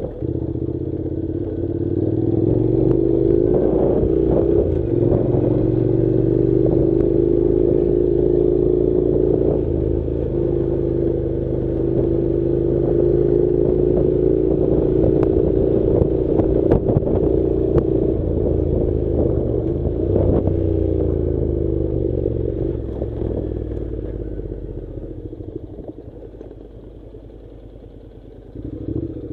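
Honda NC700's parallel-twin engine running at a steady low pull, its pitch drifting slightly up and down, with scattered knocks and rattles as the bike jolts over a stony dirt track. The engine eases off and grows quieter over the last few seconds, with a brief louder burst near the end.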